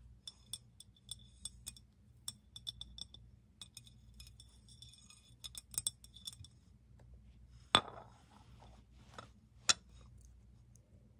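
Long acrylic fingernails tapping and scratching on a white ceramic plate: many quick, light taps, each with a short high ring, for the first six seconds or so. Then two louder, sharper clinks about eight and ten seconds in, as glass jars come against it.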